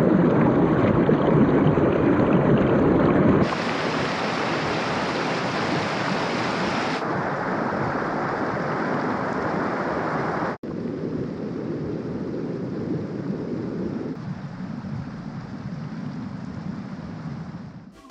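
Water rushing over the stones of man-made rapids. It is a steady, loud rush in several stretches cut together, and it changes suddenly about three and a half seconds in, again about seven seconds in, and after a brief dropout near the middle.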